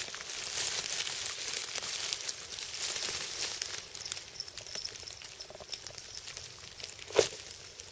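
Dry leaves and moss crackling and rustling as a hand works around the base of the mushroom close to the microphone. The crackle is denser in the first half and thins out, with one short knock near the end.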